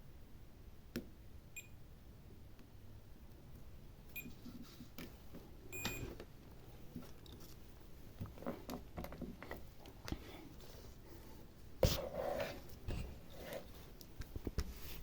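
Digital multimeter giving three short beeps, the continuity tone that signals very low resistance across the probed pads, followed by small clicks and handling noise with a sharper knock about twelve seconds in.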